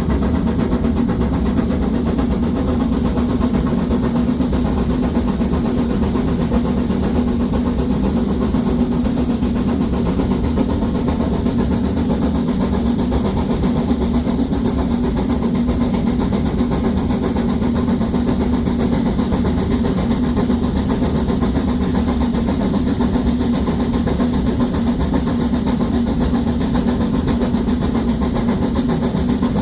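Harz narrow-gauge steam locomotive 99 7240-7, a 2-10-2 tank engine, working hard up a 1 in 25 grade with seven full coaches: a steady, unbroken run of exhaust beats.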